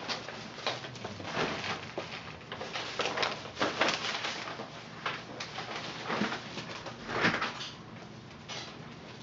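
Puppies wrestling and scrambling over crinkly pee pads and blankets: irregular scuffling and crinkling, loudest about three to four seconds in and again about seven seconds in, with a few small puppy noises.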